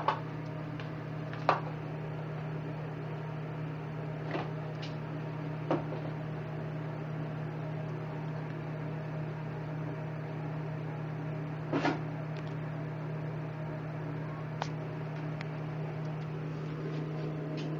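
A steady low hum, like a mains appliance or motor, with about half a dozen light clicks and knocks scattered over it.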